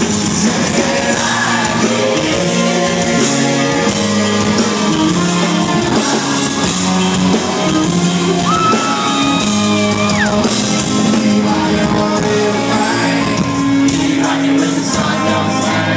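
A country-rock band plays live through a concert PA, with electric and acoustic guitars, bass, drums and a singing lead voice, heard from the audience in a large hall. About halfway through, a high guitar note slides up, holds, then drops away.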